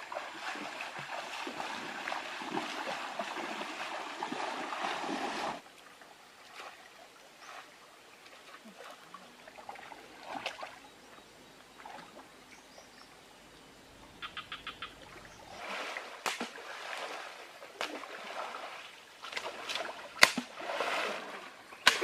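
Shallow river water rushing and splashing around people wading in it, with scattered splashes. The steady rush cuts off suddenly about five seconds in, and there is a single sharp, loud slap near the end.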